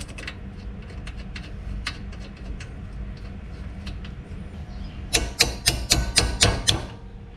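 Hand wrench tightening a bolt on a car's floating brake caliper: a few scattered light clicks, then a quick, even run of about eight sharp clicks about five seconds in.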